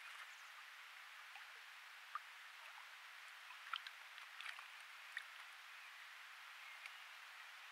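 Beaver climbing out of the pond onto the muddy bank: a few small drips and ticks, faint over a steady hiss.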